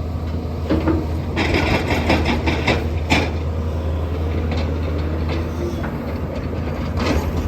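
Doosan excavator's diesel engine running steadily, with the rattle and scrape of asphalt millings and metal clanks as it loads. The clatter is densest between about one and a half and three seconds in, ending in a sharp knock, and comes back near the end.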